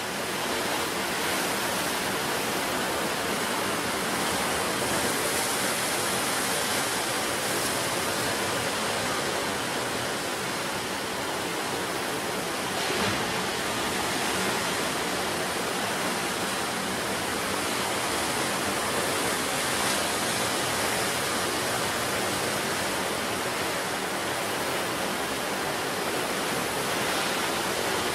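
Ocean surf breaking on the shore: a continuous wash of waves with only gentle rises and falls in level.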